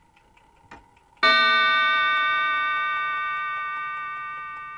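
A single bell-like chime struck about a second in, ringing with several tones at once and slowly fading away.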